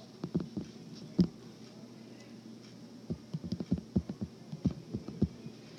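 Handwriting on an iPad touchscreen: a scatter of soft taps and light clicks as the numbers are written, with a pause of about two seconds in the middle.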